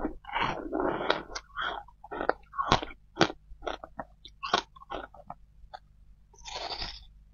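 Close-miked chewing of compressed shaved ice topped with passion fruit: irregular crisp crunches as the ice breaks between the teeth, with another bite taken near the end.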